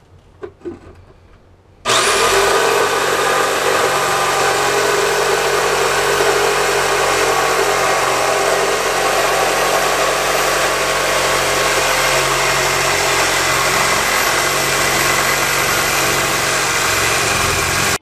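Corded jigsaw fitted with a Bosch T308B clean-cut wood blade starts about two seconds in and runs steadily, cutting through a wooden cabinet panel. It stops suddenly at the end.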